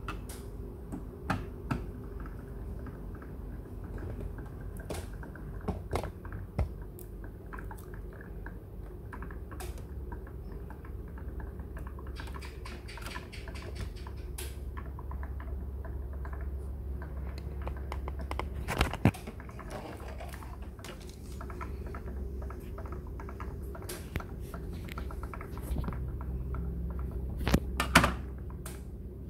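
Scattered small clicks and taps of plastic being handled at a printer's ink tank while an upturned ink bottle drains into the filler inlet, over a low steady hum. Two louder knocks come, one a little past the middle and one near the end.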